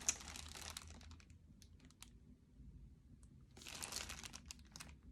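Faint rustling and crinkling of a skein of yarn and its label being handled and turned over, in two short bursts with light clicks and ticks between.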